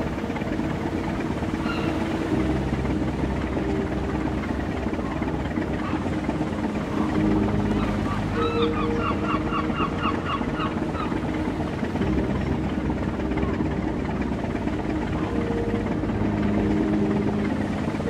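Steady low drone of ship engines over the even hiss of the open sea. Around the middle a bird calls in a quick run of about ten short notes.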